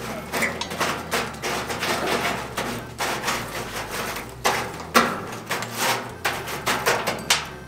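A metal poker raking and knocking wood coals and embers under a cast-iron potjie pot: a busy run of scrapes and clunks, the sharpest knocks about five seconds in and near the end.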